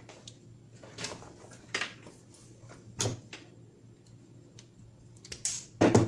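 Scattered clicks, scrapes and knocks of wire and hand tools being handled while wiring an electrical control panel, with a louder knock near the end.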